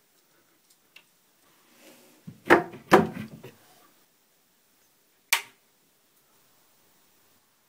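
Two knocks about a second into the middle of the stretch, with a brief rattle after them, then a single sharp click a couple of seconds later as the panel heater's rocker switch is flipped on.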